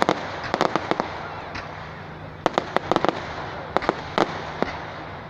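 Fireworks going off: clusters of sharp cracks and pops, around the start, about three seconds in and again near four seconds, over a continuous crackling hiss.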